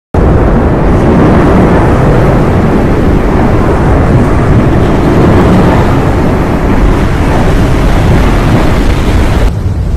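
Steady loud rumbling roar of the erupting Cumbre Vieja volcano on La Palma, even and unbroken, cutting off abruptly near the end.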